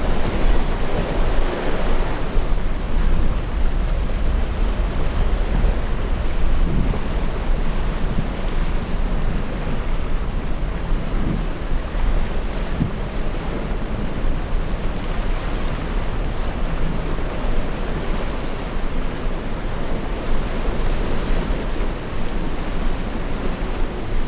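Ocean surf breaking and washing steadily in a rough inlet, with wind buffeting the microphone as a constant low rumble.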